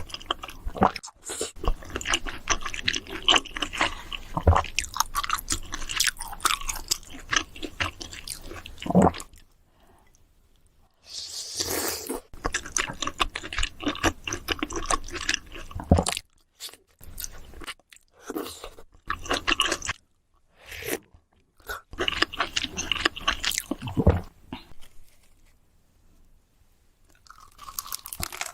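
A person chewing crunchy food close to the microphone, in stretches of several seconds broken by a few short pauses.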